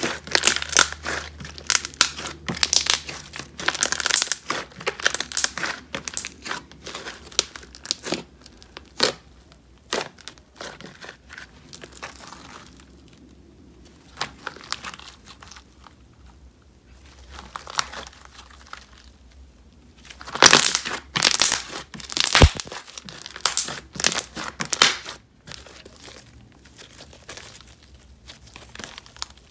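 Thick, glossy semi-floam slime full of foam beads being squeezed and stretched by hand, giving an irregular crunching and crackling. It thins out for a stretch in the middle, then comes back as a loud flurry of crackles about two-thirds through.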